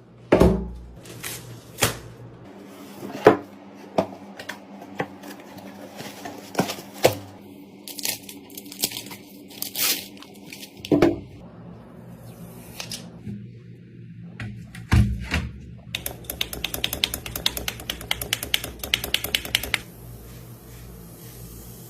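Scattered sharp clicks and knocks over a low steady hum, then a rapid run of even clicks lasting about four seconds, starting about two-thirds of the way through.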